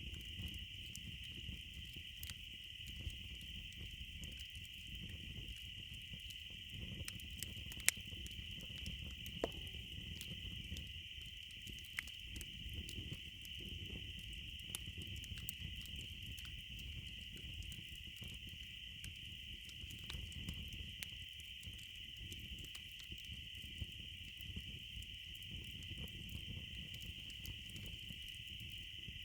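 Campfire crackling, with scattered sharp pops, the loudest about eight seconds in, over a steady high-pitched insect chorus.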